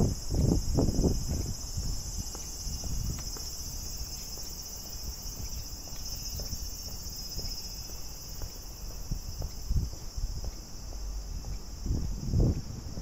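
Steady, unbroken high-pitched shrilling of insects. Low rumbling bursts, the loudest sounds here, come in the first second and again near the end.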